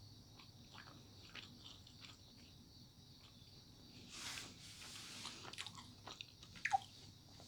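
Faint mouth sounds of someone biting and chewing a dry, bready coconut macaroon, with scattered small clicks. There is a breathy rush about four seconds in and a couple of sharper clicks near the end.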